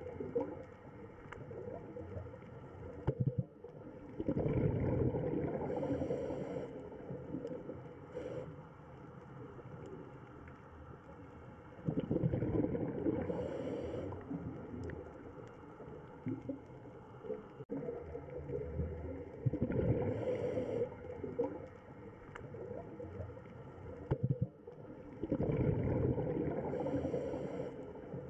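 Underwater recording of a scuba diver's breathing: a bubbling, gurgling exhale swells four times, about every seven seconds, and each swell ends in a short high hiss from the regulator.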